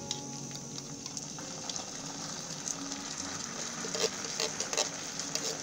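Canned beans in tomato sauce poured from a tin into a hot frying pan on a camping gas stove. A steady sizzle runs underneath, and wet spattering and crackling grow louder about four seconds in as the food lands in the pan.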